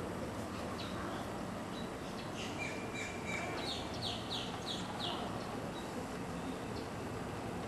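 Birds calling: scattered short chirps, then a run of about five quick downward-slurred notes a few seconds in, over a steady background hiss.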